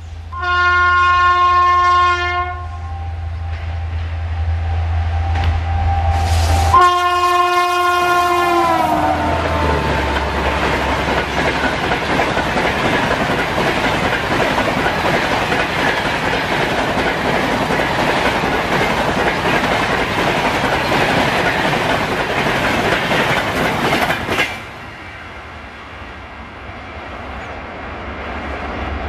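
A WAP-7 electric locomotive's horn sounds one long steady blast, and a second blast a few seconds later drops in pitch as the locomotive passes. The express's LHB coaches then rush by at speed with loud wheel-and-rail noise. About 24 seconds in this cuts off abruptly to a quieter rumble of the train running away.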